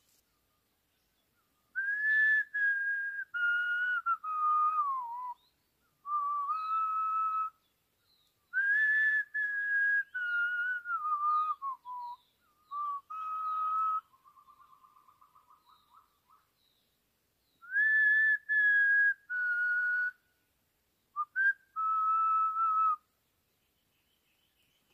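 A person whistling a slow melody in phrases of held notes that step down in pitch, the same phrase coming back three times with pauses between. A faint rapid fluttering note comes about midway.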